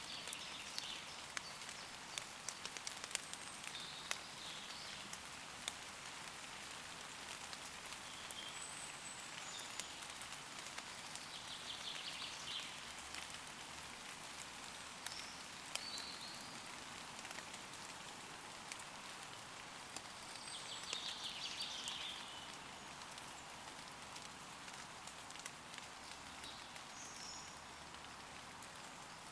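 Steady gentle rain falling on leaves, with many separate drops ticking. Woodland birds call now and then, with a short trill near the middle and another about two-thirds of the way through.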